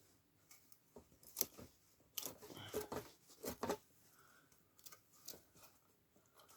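Light clicks and scrapes of a screwdriver working the screws on the underside of a transformer, with a busier burst of scraping about two seconds in that lasts nearly two seconds.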